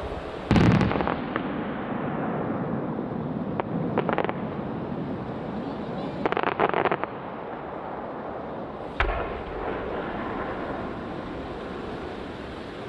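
Aerial fireworks shells bursting: a loud boom about half a second in, bursts of crackling near the middle, and another boom about nine seconds in, over a continuous low rumble.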